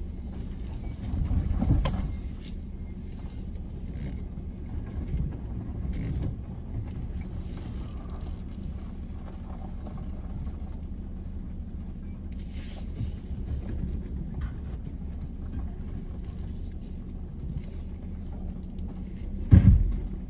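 Ford Ranger 4x4 crawling slowly over a rutted dirt track, heard from inside the cab: a steady low engine and drivetrain rumble with knocks from the body and suspension, and a bump about two seconds in. Near the end comes one sharp, loud knock as the running board scrapes the ground.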